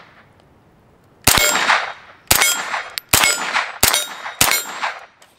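Five single shots from a moderated CZ Scorpion .22 LR carbine, spaced a little under a second apart. Each shot is followed by a ringing metallic clang, like a steel target being hit.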